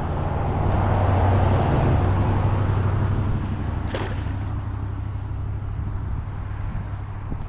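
A motor vehicle going by on the road, a steady low engine rumble with tyre noise that swells in the first couple of seconds and then slowly eases off. About four seconds in, a short splash as the baited ring net lands in the ditch water.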